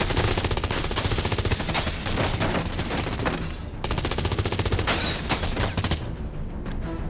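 Rapid automatic rifle fire in two long sustained bursts, with a brief break a little before four seconds in, stopping about six seconds in.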